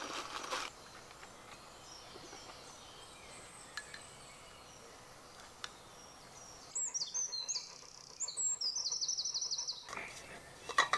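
A songbird singing loud and high for about three seconds, beginning past the middle: a few quick falling notes, then a rapid trill of repeated notes. Fainter bird calls come before it. A brief crinkling sounds at the very start, and a few light metallic clinks come near the end.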